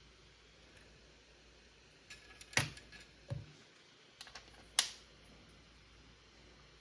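A handful of sharp clicks and light knocks in two short clusters about two seconds apart, the sound of small hard parts being handled and set down, over quiet room tone.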